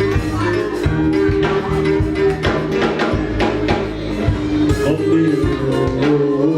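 Live band music with a steady drum beat, bass and keyboard or guitar.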